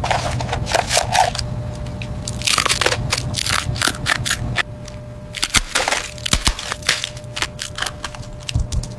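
Pringles potato crisps being bitten and chewed: irregular crunching and crackling over a faint steady hum.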